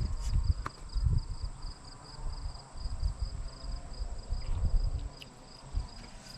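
An insect chirping in a steady high pulse, about four or five chirps a second, over irregular low rumbling noise that is louder in the first half.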